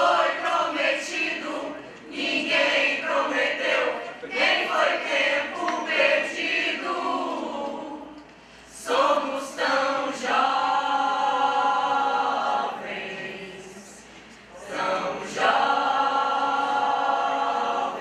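Choir singing, short moving phrases at first, then long held chords twice in the second half.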